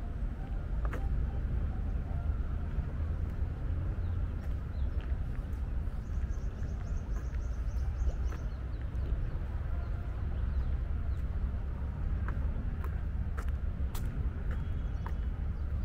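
Outdoor ambience: a steady low rumble with scattered faint clicks and ticks.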